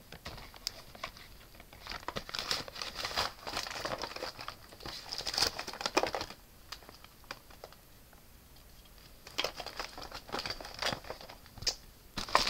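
Plastic packaging crinkling and rustling in bursts, with small clicks and knocks, as someone rummages through craft supplies to find a finger dauber. There is a quieter pause in the middle.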